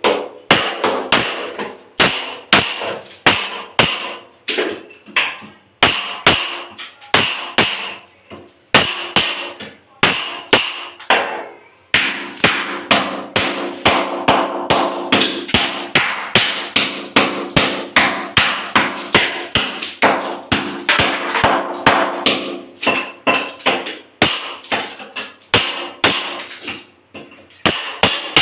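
Hammer blows breaking ceramic tiles to reach a leaking pipe: a long run of sharp strikes, two or three a second, with brief pauses between runs.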